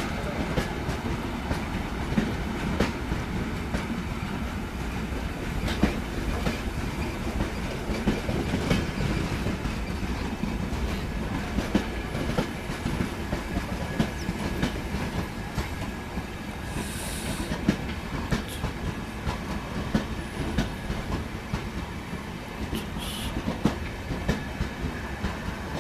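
Coaches of the 19301 Yesvantpur–Indore Express rolling along, a steady rumble with the wheels clicking and clacking over rail joints. Two short hisses come through, about 17 seconds in and again near 23 seconds.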